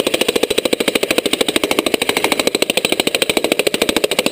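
Bosch electric jackhammer hammering a bit into rock: a rapid, even train of blows that holds a steady rate.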